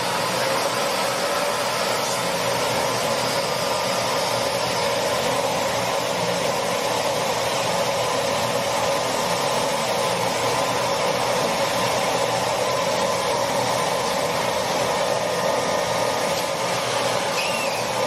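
Miele vacuum cleaner running steadily, its suction drawing air through a sealed jar and the contents of a pierced egg into it. A brief faint whistle comes near the end.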